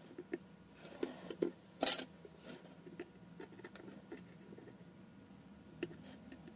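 Scattered small clicks and taps of a precision screwdriver and the plastic parts of a Samsung Galaxy A12 being handled during disassembly, with a cluster of louder clicks and a brief scrape about two seconds in.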